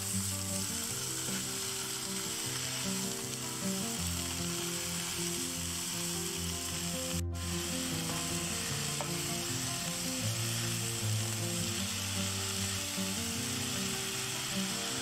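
Pork and napa cabbage sizzling steadily in a frying pan over a portable gas cartridge stove, stirred with a metal spoon. The sizzle drops out for an instant about seven seconds in.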